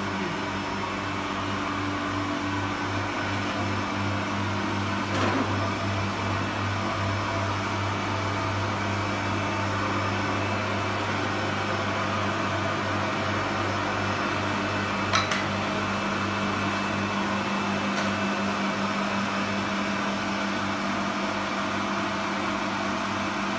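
Machinery of a farm-built wood gasifier running with a steady hum and hiss, a low even drone under it. A few short clicks come through, the sharpest about fifteen seconds in.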